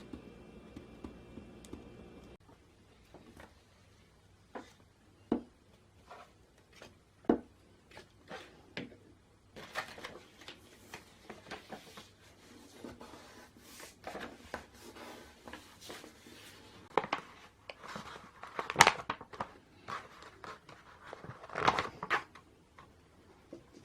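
Hands working with kitchen packaging and utensils: scattered sharp taps and clicks, then crinkling, tearing and snipping, with the loudest knocks near the end. A steady machine hum runs under the first couple of seconds and then stops.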